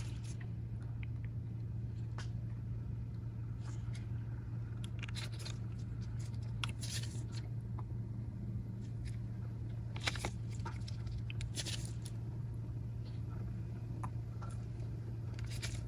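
Scattered faint clicks and light scrapes of small repair tools on tiny phone screws and internal parts, over a steady low electrical hum.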